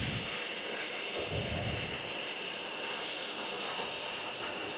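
Gas torch flame hissing steadily while it heats steel bolts to soften them for bending, with a couple of soft low thumps from handling the work.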